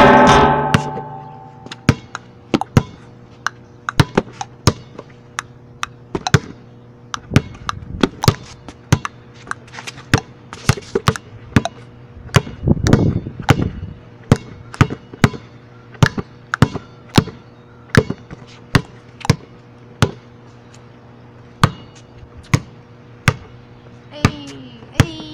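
A basketball being dribbled on pavement: a steady run of sharp bounces, about two a second, with a harder, ringing bounce right at the start.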